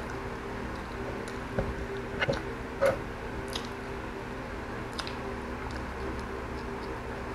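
Close-miked mouth sounds of someone eating with their hands: chewing, with a few sharp wet smacks, loudest about two to three seconds in. A steady low hum runs underneath.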